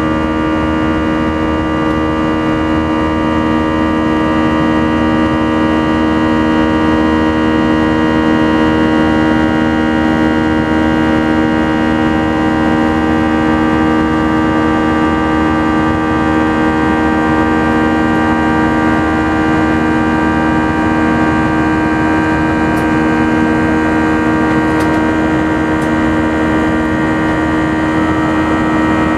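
Airbus A319's CFM56 turbofan engines in flight, heard inside the cabin near the wing: a steady drone made of several held tones over a rushing noise, the strongest a low hum.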